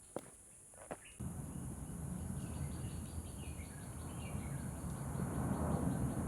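A few footsteps, then a steady low rumbling noise sets in suddenly about a second in and grows gradually louder, with a few faint bird chirps over it and a constant high insect-like buzz.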